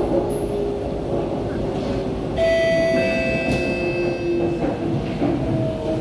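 Kawasaki–CRRC Sifang C151C MRT train running, heard from inside the passenger car: a steady rumble of wheels on rail under the whine of the traction motors. About two and a half seconds in, a brief high-pitched ringing squeal joins for about a second.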